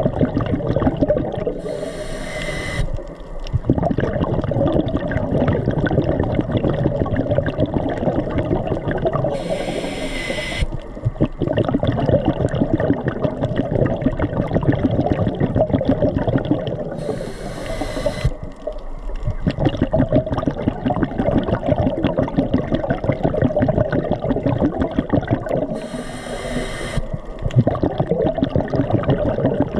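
Underwater sound at a coral reef: a steady crackling hiss, broken four times, about eight seconds apart, by a short hiss of a diver's breath.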